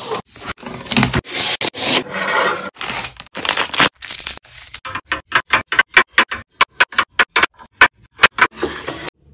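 Plastic wrapping crinkling and rustling as packaged items are pulled out and unwrapped. From about five seconds in, a quick run of short sharp clicks and taps, around four or five a second.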